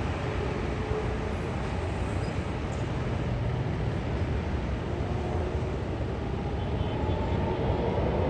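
Aircraft engines running steadily: a broad rumble with a faint whine that rises slightly near the end.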